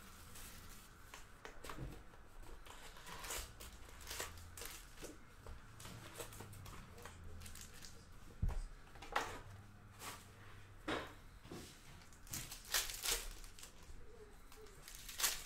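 Handling a Panini Hoops hobby box: plastic shrink wrap crinkling, the cardboard box opened and foil card packs rustling as they are pulled out and stacked. A series of short rustles and taps, the sharpest coming in the second half and near the end.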